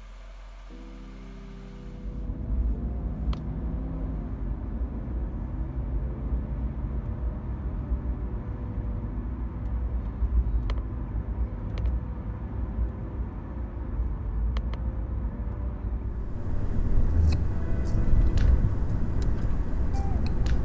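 The supercharged 4.0-litre V8 of a 1999 Daimler Super V8 heard from inside the cabin on the move: a steady low rumble of engine and road noise. It starts after a quieter hum in the first two seconds and grows louder near the end.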